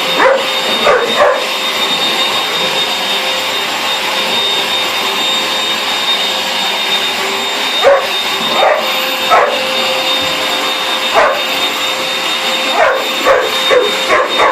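Vacuum cleaner running steadily with a constant motor whine, while a dog barks at it in short bursts: a few barks near the start, a cluster in the middle, and several more near the end.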